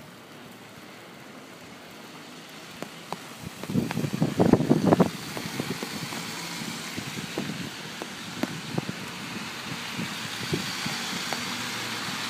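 Car driving by on a snow-covered street, its tyres hissing on the snow, the hiss slowly growing louder. A burst of close crunching clicks and knocks comes about four to five seconds in.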